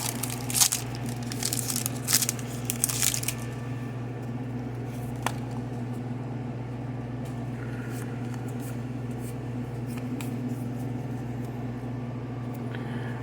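Foil trading-card booster pack crinkling and tearing open for the first three seconds or so, then a steady low hum with a few faint clicks as the cards are handled.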